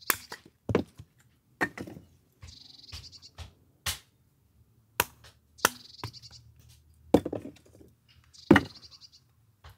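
A hatchet splitting dry firewood into kindling on a log chopping block: about eight sharp wooden chops, unevenly spaced.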